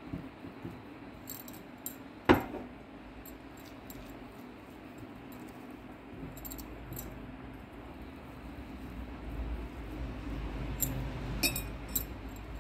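Hands crumbling boiled potatoes in a glass bowl: soft squashing and rubbing, with a sharp click about two seconds in and a few light clinks near the end as rings or a metal bangle tap the glass. A low rumble comes in about halfway.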